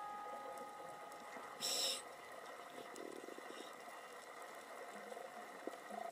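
Faint underwater noise with a short hiss just under two seconds in, as the last tones of background music fade out.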